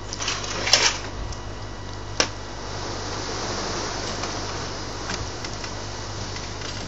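Ducks pecking at cooked pasta on tarmac: sharp clicks of a bill striking the ground, a quick cluster just before a second in and a single loud one about two seconds in, with fainter pecks later. A steady low mechanical hum runs underneath.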